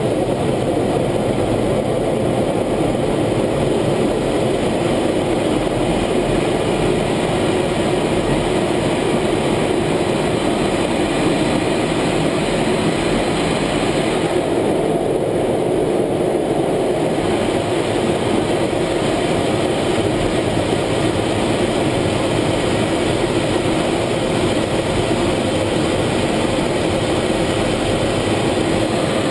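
Steady, loud noise of an F-16 fighter's jet engine and rushing air, heard from inside the cockpit during the takeoff roll and climb-out. The higher hiss briefly dulls about halfway through.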